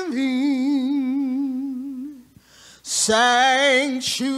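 A woman singing a slow congregational song solo and unaccompanied, holding long notes with a wide vibrato, with a short pause for breath about two seconds in.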